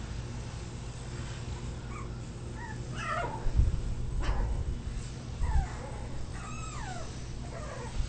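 Young puppy whimpering and yipping in short high cries that bend up and down in pitch. A couple of dull thumps come in the middle.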